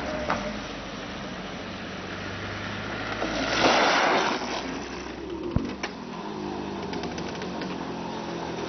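Homemade kart passing on asphalt with a small engine running steadily, and a loud rushing noise for about a second around three and a half seconds in as it goes close by. A single sharp knock comes a couple of seconds later.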